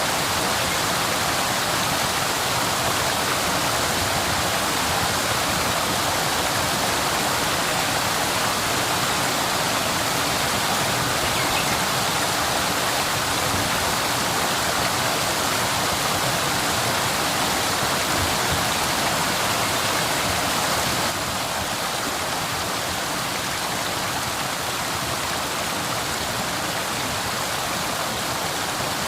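Waterfall, its falling water rushing in a steady, even hiss. About two-thirds of the way through it drops abruptly to a slightly quieter, duller rush.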